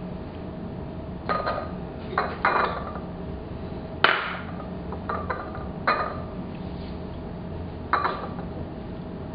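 Tableware being handled: a run of about seven separate clinks and knocks, irregularly spaced, as dishes or cutlery are set down and moved.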